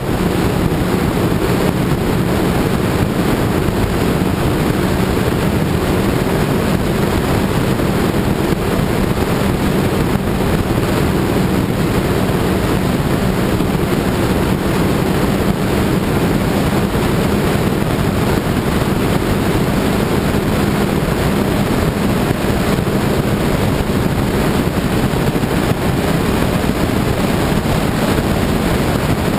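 Wind rushing over the microphone of a camera on a motorcycle at road speed, with the motorcycle's engine droning underneath at a steady cruise. It stays steady throughout, with no gear changes or shifts in speed.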